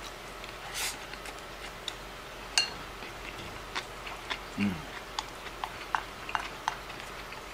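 Chopsticks clicking and scraping against a ceramic rice bowl in a string of irregular small clicks while someone eats, with a brief low 'mm' about halfway through.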